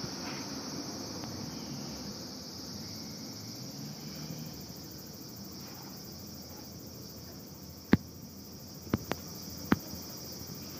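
Insects shrilling steadily at a high pitch throughout. Near the end come four short, sharp clicks of steel, one then two close together then one more, as the two katana blades touch during the sword form.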